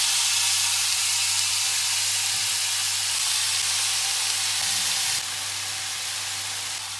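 Skewered chunks of marinated chicken sizzling in oil on a hot tawa griddle, a steady frying hiss that drops a little about five seconds in.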